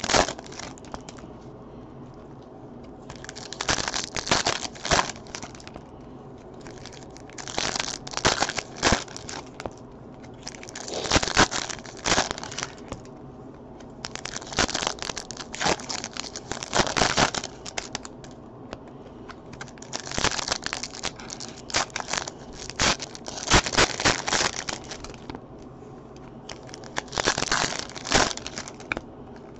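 Foil trading-card pack wrappers being torn open and crumpled by hand, in repeated bursts of crinkling every few seconds.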